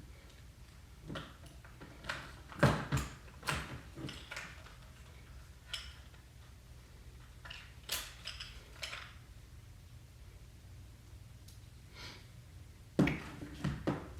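Scattered small clicks and knocks of hard plastic parts being handled and pushed together: a vintage Vivitar 283 flash unit being fitted with batteries and parts, with a few sharper knocks a few seconds in and near the end.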